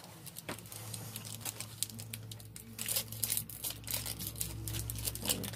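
Plastic candy cane wrapper crinkling and tearing as it is unwrapped and handled, in irregular crackles, over a steady low hum.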